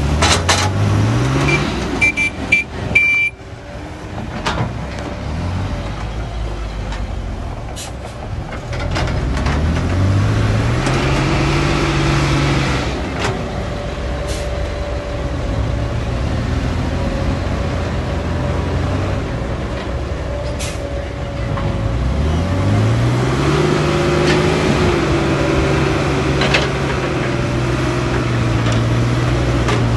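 Caterpillar 312B excavator's diesel engine running and revving up under hydraulic load three times, at the start, around nine seconds in and around twenty-two seconds in, each time climbing in pitch and then holding as the machine digs and swings. A burst of knocks and clatter two to three seconds in as soil is dumped into the steel dump truck bed.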